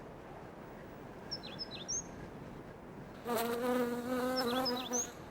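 A flying insect buzzing steadily for about two seconds, starting a little past the middle, with a low hum and a string of overtones. Short, high bird chirp phrases come twice, one of them over the buzz.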